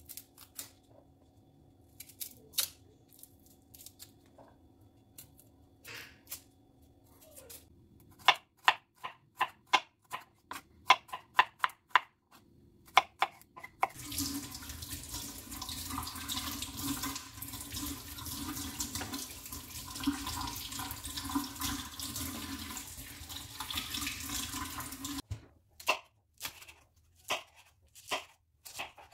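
A chef's knife clicking and knocking on a wooden cutting board while garlic is peeled, with a quick run of loud sharp knocks in the middle. A kitchen tap then runs into a stainless-steel sink for about eleven seconds and stops suddenly, after which the knife slices green chillies on the board in short strokes.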